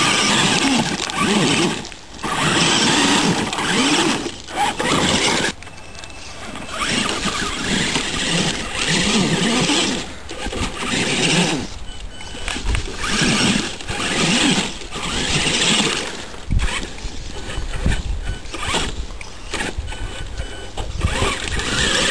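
Traxxas E-Maxx electric RC monster truck's motors and gears whining in repeated throttle bursts that rise and fall in pitch, with short pauses between. Its tyres scrabble over dirt and stones as it climbs a rocky slope.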